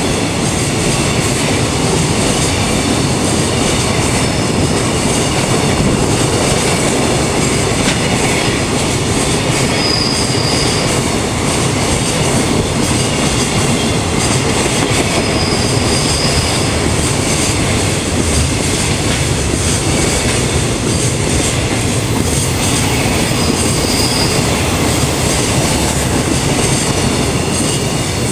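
Container flat wagons of a long freight train rolling steadily past at close range: continuous wheel-on-rail running noise with the rattle of the wagons. Three brief high wheel squeals cut through it, at about 10, 16 and 24 seconds in.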